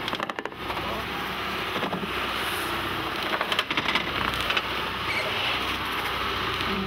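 Steady rush of wind and sea around an open fishing boat, broken by a few sharp knocks and splashes as a marlin is hauled out of the water over the gunwale.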